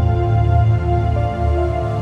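Background music: calm new-age style music with held chords over a sustained bass.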